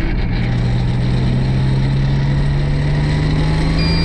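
Turbocharged 3.8-litre Buick V6 of a Holden VR Commodore ute pulling under light boost, its engine note climbing steadily in pitch as the revs rise. Near the end a short, steady high beep sounds: the buzzer that warns of a lean air-fuel mixture on boost.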